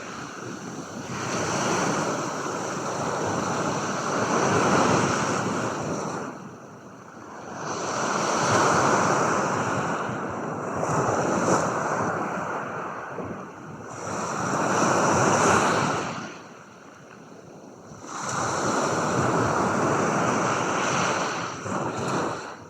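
Ocean waves breaking and washing in, the surf noise swelling and falling back in slow surges every few seconds.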